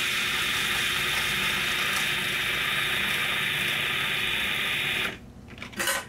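Electric food processor running steadily, puréeing surimi, tofu and egg into a smooth paste. The motor stops about five seconds in, followed by a brief clatter near the end.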